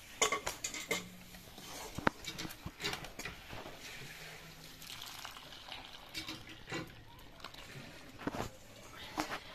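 Reserved cooking water poured back into a wok of mashed red lentils (masoor dal) and stirred in with a steel ladle: splashing and sloshing liquid, with scattered sharp clinks of the ladle against the pan.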